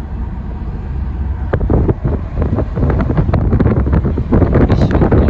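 Heavy wind buffeting the microphone during a car drive, over a steady low rumble; the gusty crackle grows stronger about a second and a half in.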